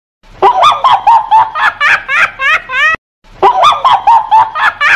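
High-pitched, cartoonish laugh sound effect: a run of about six quick rising 'ha' pulses, played twice over with a short break about three seconds in.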